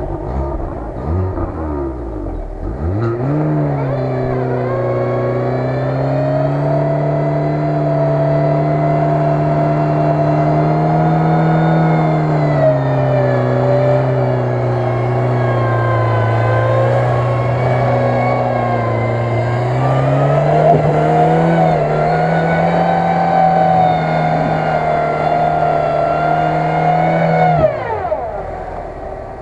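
Lada Niva's four-cylinder petrol engine pulling hard up a muddy slope: the revs climb in the first few seconds, stay high with the pitch wavering up and down under load, then drop away sharply near the end.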